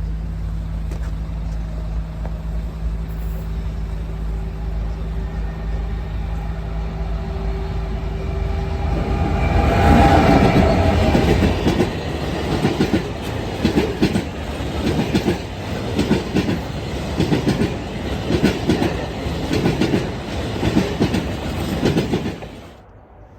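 Diesel-hauled freight train passing close by. The locomotive's engine drones steadily as it approaches and is loudest about ten seconds in. Then the wagon wheels clack over rail joints in a regular rhythm, and the sound cuts off suddenly near the end.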